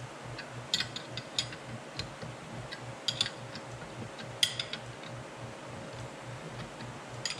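Irregular metal clicks and clinks from hand tools working a bearing puller as the bearing comes off its shaft easily, over a faint steady hum.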